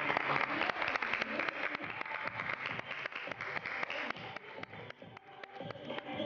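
Applause: many hands clapping at once, thinning out and dying away about four and a half seconds in, leaving a few scattered claps.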